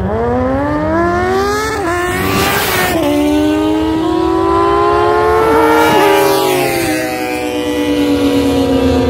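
Sport motorcycle accelerating hard down a drag strip. The engine note climbs and drops back with each of several quick upshifts, then falls steadily as the bike runs away into the distance.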